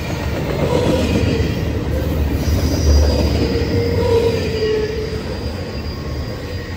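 Norfolk Southern freight train rolling past: a steady heavy rumble of wheels on rail, with thin, high wheel squeal joining in about halfway.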